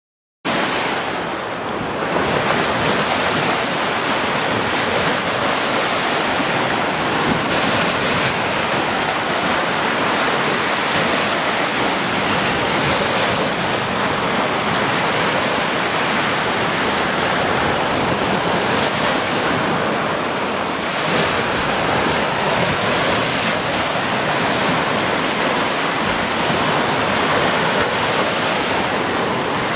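Surf washing onto a sandy beach: a steady rushing wash of breaking waves that starts suddenly about half a second in.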